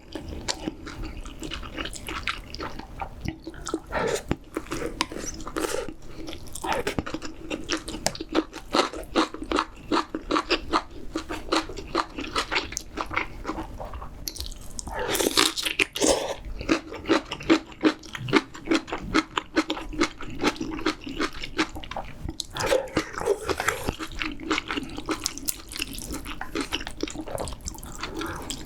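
Close-miked mouth sounds of a person eating spicy seafood ramyeon: steady wet chewing with rapid smacking clicks, and a louder, noisier stretch about fifteen seconds in.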